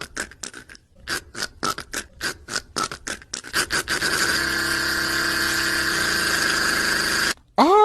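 A man beatboxing vocal sound effects: a run of sharp rhythmic mouth clicks and puffs, about three or four a second, then a steady hissing noise that cuts off suddenly, and a loud rising tone starting right at the end.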